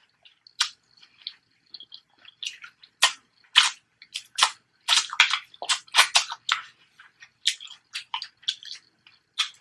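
Close-up eating sounds: wet chewing and mouth smacks, irregular short clicks several times a second.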